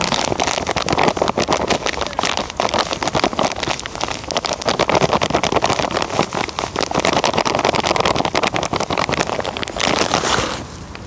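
Dry fishing groundbait being scooped and poured from its bag into a measuring container: a dense, continuous granular rustle and crackle that eases off near the end.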